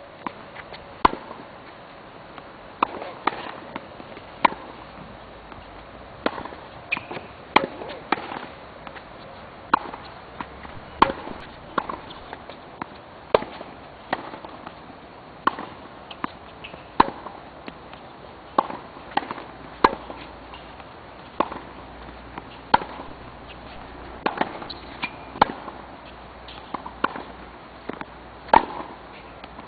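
Tennis ball being hit back and forth in a rally: sharp racquet hits about every second or so, with the ball's bounces on the court between them.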